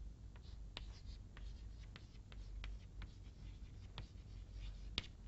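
Chalk writing on a blackboard: a string of faint taps and short scratches as letters are written.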